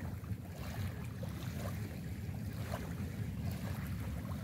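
Wind buffeting the microphone in a steady low rumble, with faint small ticks and splashes of calm sea water.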